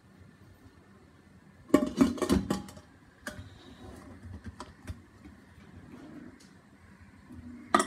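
Lid of a metal pressure cooker being put on and closed: a quick cluster of metal clanks and clicks about two seconds in, then a few lighter clicks as it is settled and the vent weight is checked.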